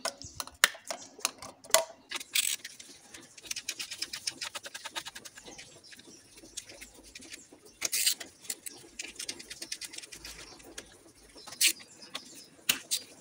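Hand ratchet on a long socket extension clicking in several quick runs, with scattered clicks and knocks of metal tools against the engine.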